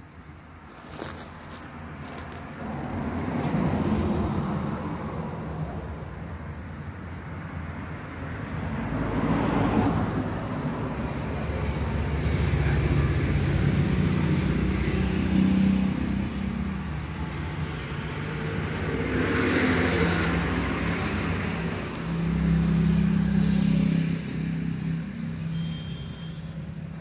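Road traffic: motor vehicles rumbling past, the sound swelling and fading several times over a steady low hum.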